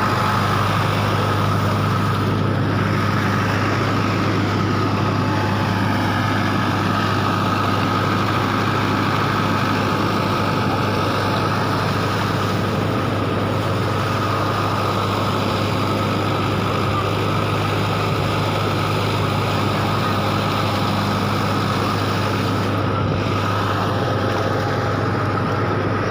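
A small engine running steadily at constant speed, with a low hum and a fainter steady whine above it.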